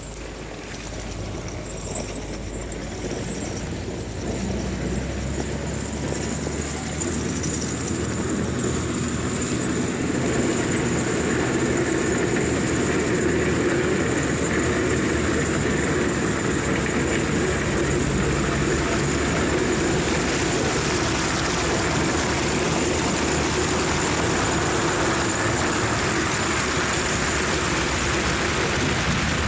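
Snow-removal motor grader's diesel engine running as the machine plows along with its blade pushing through snow, growing louder over the first ten seconds as it approaches, then holding steady.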